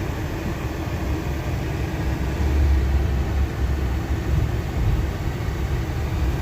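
A car travelling on the road: a steady low rumble of engine and tyre noise.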